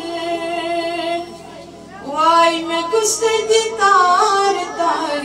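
A woman's voice singing a devotional Islamic hymn solo, holding long, wavering notes. It drops away for about a second, then comes back with a new phrase of gliding, ornamented notes.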